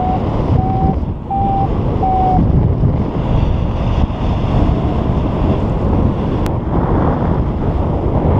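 Airflow rushing over the microphone in paraglider flight. In the first two and a half seconds a variometer gives four short, evenly spaced beeps, the tone it makes to signal climbing in lift.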